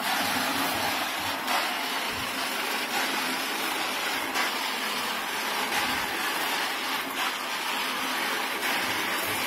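About 8 kg of dry-roasting peanuts tumbling inside a rotating roaster drum made from a thick steel pot: a steady rushing rattle.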